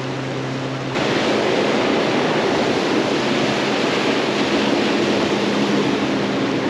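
Steady outdoor rushing noise of wind and waves, with a low steady hum beneath; it becomes suddenly louder about a second in.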